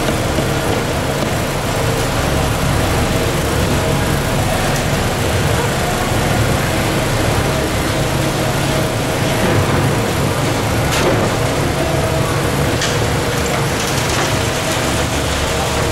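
Concrete mixer truck's diesel engine running with a steady drone. A few short scrapes and clinks from a shovel working wet concrete into test molds fall around the middle and later on.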